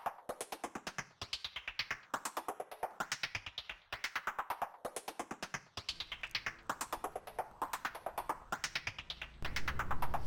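Quirky comedy background music: rapid tapped notes in falling runs that repeat about every second and a quarter. A low hum comes in near the end.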